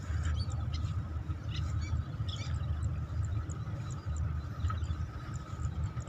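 Wind buffeting a phone microphone in an open field, a steady low rumble that rises and falls. Scattered short, high bird chirps sound faintly over it.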